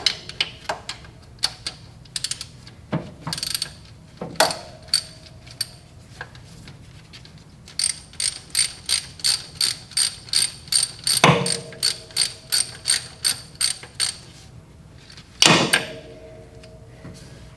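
Hand socket ratchet clicking as it backs out a valve cover bolt on a Ford 289 V8: a few scattered clicks, then a steady run of about three clicks a second in the middle, with several louder metallic clanks that ring briefly.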